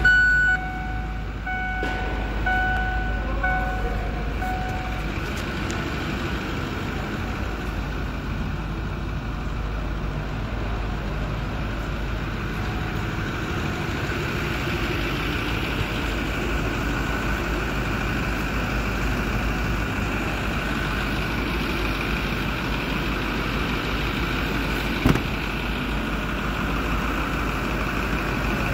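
Ford F-450 Super Duty work truck's engine idling steadily. Over the first five seconds a dashboard warning chime beeps repeatedly. About 25 seconds in there is a single sharp knock as the door is handled.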